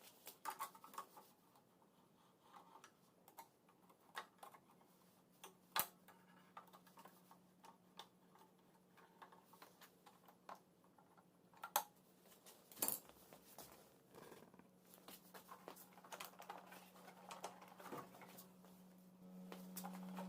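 Faint, scattered metal clicks and taps of hand tools undoing the nuts that hold a motorcycle's headlight visor, a few sharper knocks among them, over a faint steady hum.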